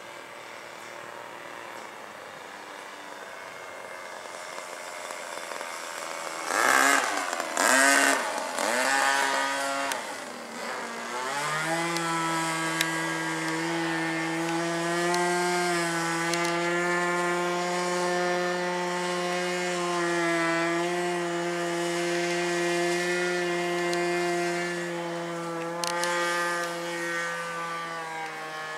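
Evo 15cc gasoline two-stroke engine of a Wild Bill U Can Do 3D RC airplane in flight. The engine grows louder, and its pitch swings sharply up and down about seven to ten seconds in. It then holds a steady pitch for about fifteen seconds and eases off near the end.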